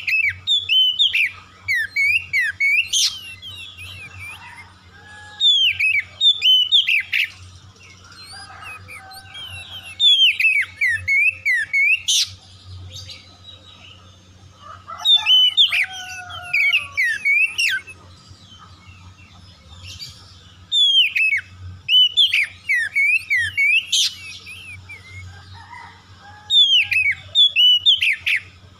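Oriental magpie-robin (kacer) singing: loud bursts of fast, varied whistled notes sliding up and down, each burst two to three seconds long and coming about every five seconds, with softer chirps between. A steady low hum runs underneath.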